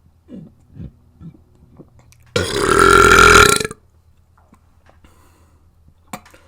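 A person burping: one loud burp lasting over a second, starting about two and a half seconds in, with a few faint short sounds around it.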